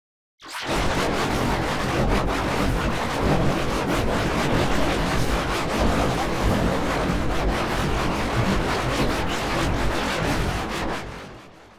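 Loud, steady rushing noise with a crackly grain, like wind or surf. It starts abruptly about half a second in and fades out near the end.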